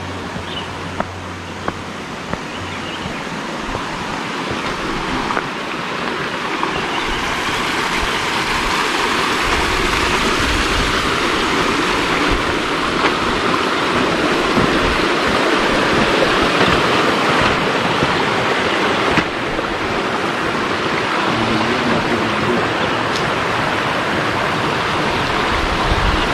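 Rushing water of a stream, a steady hiss that grows louder over the first ten seconds or so and then holds.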